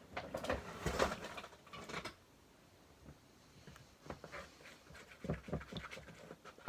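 Handling noises at a table: rustling and rubbing in the first two seconds, then scattered soft clicks and taps, as a lotion container is handled for mixing into slime.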